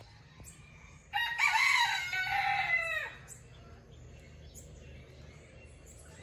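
A rooster crowing once, a single call of about two seconds that drops in pitch as it ends.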